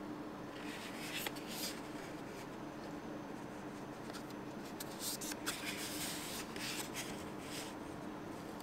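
Hands rubbing and sliding over a cardboard earphone box as it is turned in the hands: two spells of papery scraping, the first about half a second in and the second from about the middle, with a few sharp taps, over a faint steady hum.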